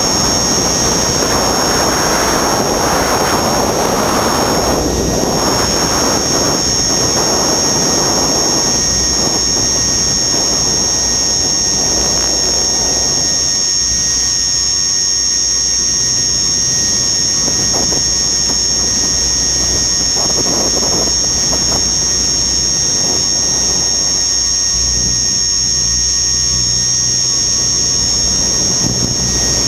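Radio-controlled helicopter in flight, heard from its onboard camera: a steady high-pitched whine from its drive, with gusty wind noise over the microphone that is heaviest in the first dozen seconds and flares again around twenty seconds in.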